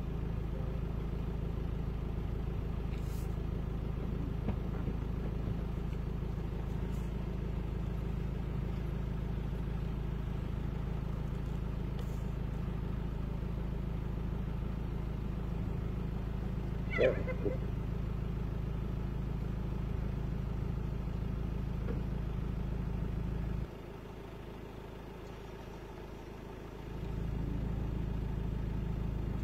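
Vehicle engine idling with a steady low rumble, which drops lower for about three seconds late on. A brief pitched sound cuts in about halfway through.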